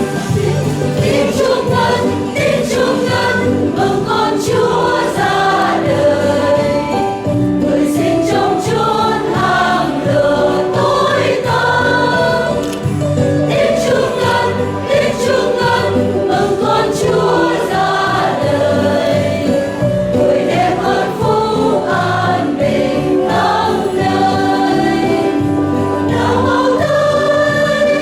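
A church choir singing a Vietnamese Christmas hymn in several voices over sustained low instrumental notes.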